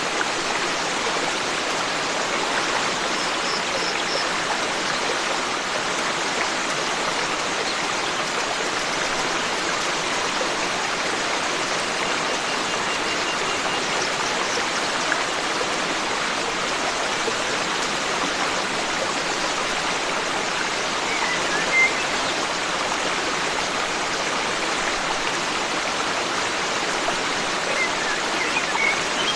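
Forest stream flowing steadily, an even rush of water, with a few brief, faint bird chirps about a fifth of the way in, about three-quarters of the way in, and near the end.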